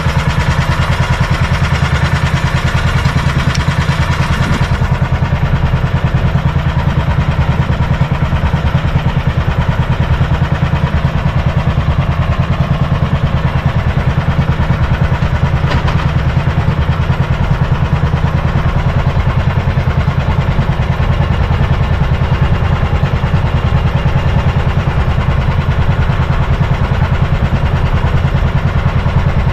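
The engine of a motorized outrigger boat (bangka) running steadily under way, a constant low drone.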